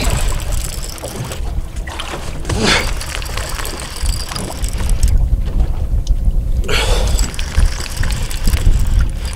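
Wind buffeting the microphone in a steady low rumble, over water lapping and sloshing against a boat's hull.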